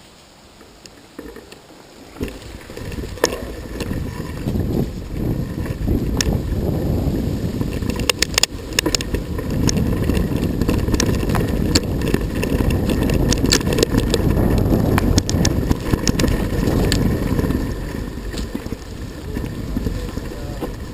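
A bicycle being ridden over rough ground, with a heavy rumble of wind and ground noise on the microphone and the bike rattling and clicking. It builds up about two seconds in and eases off near the end.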